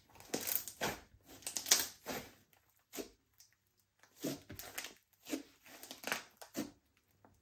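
Slime being kneaded and squished by hand while makeup is mixed into it: a run of irregular wet squishes and crackles with short pauses between.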